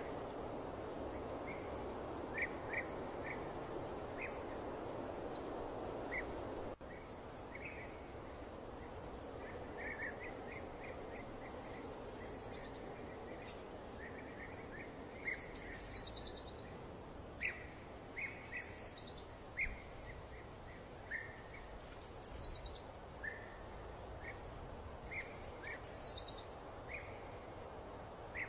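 Birds chirping over a steady background hiss: short repeated chirps and a high, falling call that comes back every three to four seconds. About seven seconds in, the background noise drops suddenly, as at a cut in the recording.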